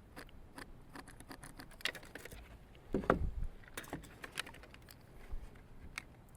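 Wooden clapboard siding pieces being handled and marked: scattered light clicks and taps, with one heavier thump about three seconds in.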